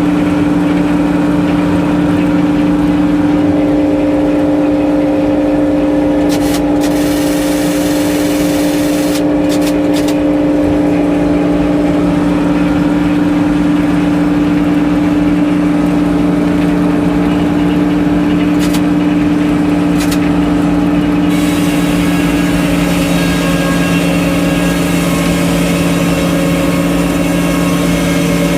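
Sawmill's engine running steadily with an unchanging drone, and a few sharp clicks. From about two-thirds of the way in, a louder hiss joins it higher up.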